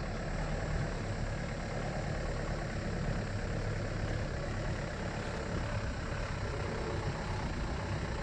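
A vehicle's engine running steadily at low speed while it drives along a rough dirt road.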